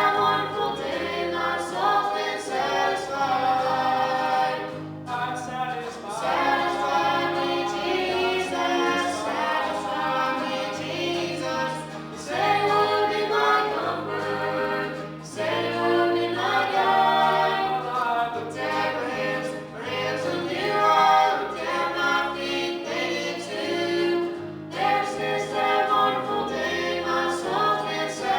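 Gospel vocal group singing in harmony over a stepping bass line.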